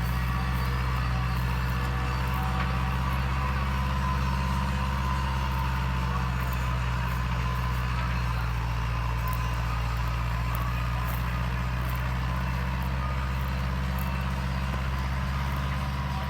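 Massey Ferguson 274S tractor's diesel engine running steadily under load while ploughing.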